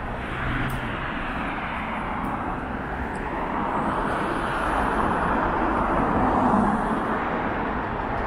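City street traffic, with a vehicle passing close by: the noise swells about four seconds in and eases off near the end.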